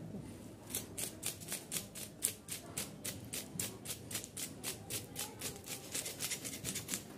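A knife scraping scales off a large murrel (snakehead fish): quick, even rasping strokes, about four a second, starting just under a second in.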